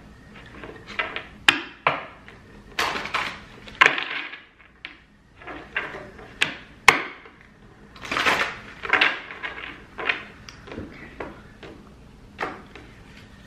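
A deck of oracle cards being handled and shuffled by hand: an irregular run of brief swishes from cards sliding against each other, broken by several sharp taps and clicks.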